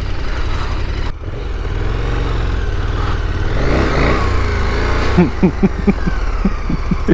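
KTM 1290 Super Adventure's V-twin engine running at low revs while the bike creeps over gravel, rising and falling in pitch about halfway through. In the last two seconds comes a quick run of short knocks.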